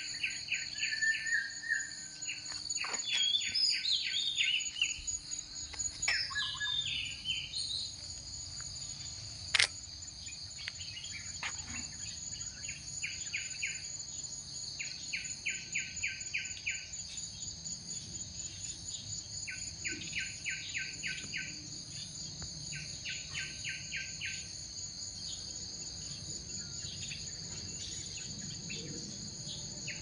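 Insects droning steadily at a high pitch, under birds calling: a bird repeats bursts of rapid, evenly spaced notes every few seconds, and gliding chirps come in the first eight seconds. One sharp click about ten seconds in.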